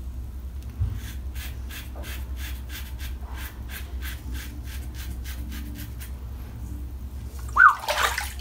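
Karve CB safety razor scraping through lathered stubble in quick short strokes, about four a second, a crisp rasp of blade on beard hair. A brief louder sound comes near the end.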